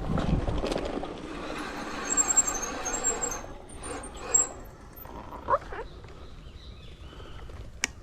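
Bicycle rolling along a dirt trail: a rush of tyre and wind noise for the first few seconds, with short high squeals in the middle and a sharp click near the end.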